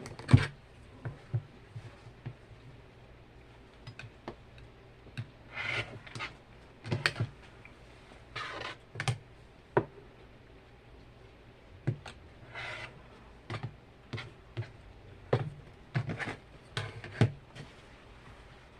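Irregular clicks, light knocks and brief rustles of hands handling sewing work at a table, over a low steady hum.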